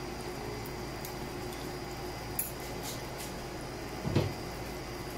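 A metal spoon working in a cooking pan as a spoonful of shrimp paste is dropped into coconut cream: a few faint clicks and one soft knock about four seconds in, over a steady low hiss.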